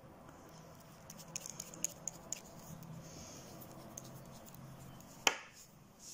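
Small moist lip smacks and ticks as freshly applied lipstick is pressed between the lips, over a faint steady hum, followed near the end by a single sharper click.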